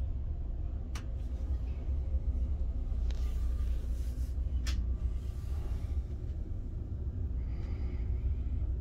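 Low, steady rumble of a passenger rail car rolling along the track, heard from inside the car. Two sharp clicks come through, about a second in and again near the middle.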